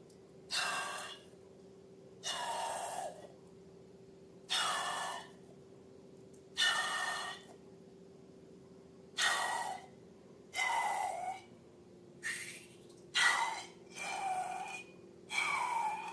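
Slime squelching in short, wet-sounding bursts, about nine times, each lasting under a second, some ending with a falling pitch.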